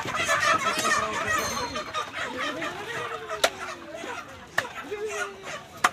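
Caged chickens clucking, busiest in the first couple of seconds and thinning out after, with three sharp clicks in the second half.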